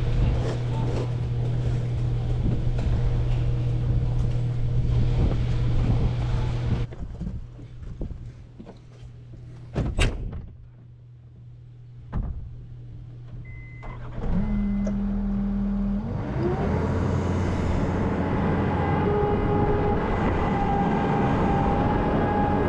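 A vehicle engine running steadily, then shut off about seven seconds in. In the quiet stretch there are scattered clicks and one loud knock. From about fourteen seconds a steady low whine sets in, and the engine starts, revs up and runs steadily again.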